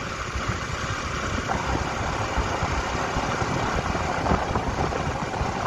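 Motorcycle cruising steadily at around 56 km/h, its engine and exhaust running under heavy wind buffeting on the microphone.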